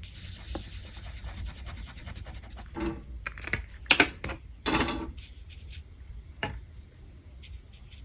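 Scratching of a drawing tool on paper, a fast run of short strokes over the first three seconds. It is followed by a few louder rubbing sounds and a single click.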